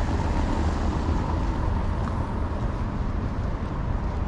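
Steady city street ambience, mostly a low, even rumble of road traffic.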